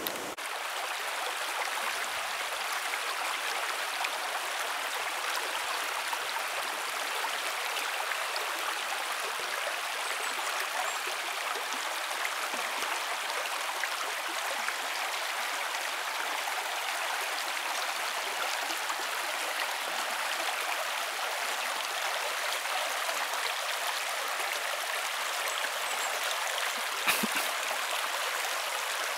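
Shallow river running low over gravel and stones, a steady sound of water rippling through a riffle. A brief knock near the end.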